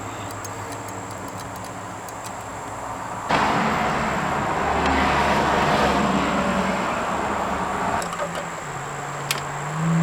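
Highway traffic going by: a steady rush of tyre and engine noise that jumps up sharply about three seconds in. Near the end a vehicle's engine hum comes up and rises in pitch.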